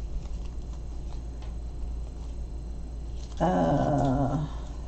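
One short, low vocal sound lasting about a second, a little past halfway through, over faint rustling and ticking of plastic sticker packets being handled.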